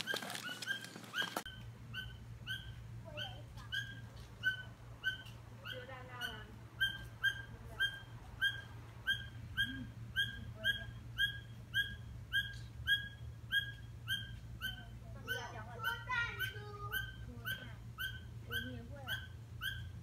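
A bird calling over and over from a tree: one short high note about twice a second, very even. The listener takes it for a hungry baby bird begging.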